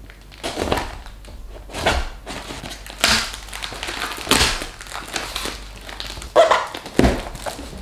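Clear plastic packing tape and a plastic shipping-document pouch being peeled and torn off a cardboard box, crinkling and rustling in irregular bursts, with sharper loud crackles near the end.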